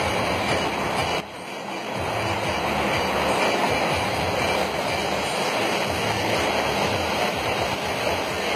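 Steady rushing roar of heavy rain and muddy floodwater pouring down a hillside and across the road, heard from inside a car. It dips briefly about a second in.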